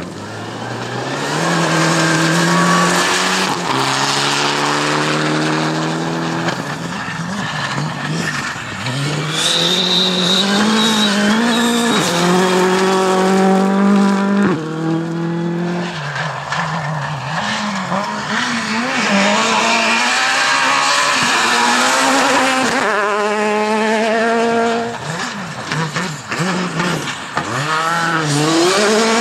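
Rally car engine accelerating hard up through the gears, its note climbing and dropping back at each upshift several times over. Near the end it falls away with the revs flicking up and down on downshifts, then pulls up through the gears again.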